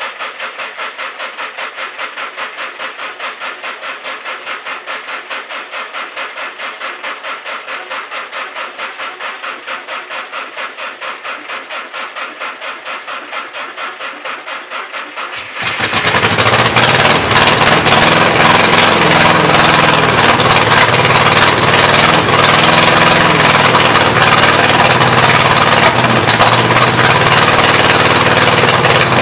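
Air-cooled Volkswagen flat-four engine on a bench stand being cranked over by its starter with a steady pulsing rhythm for about fifteen seconds, then catching and running loudly. The owner reckons it may need a new carburetor.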